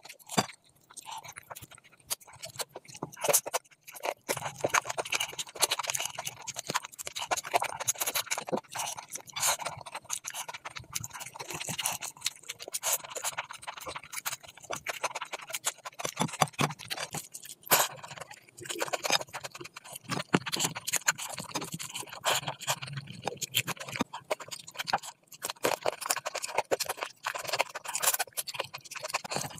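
Close-miked ASMR eating sounds: wet chewing, lip smacks and squelches of rice and mutton curry mixed and eaten by hand, a dense run of small clicks throughout. Near the end, biting into a chicken leg piece.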